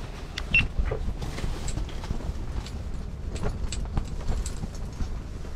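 Wind rumbling on the microphone, with scattered small clicks and knocks throughout.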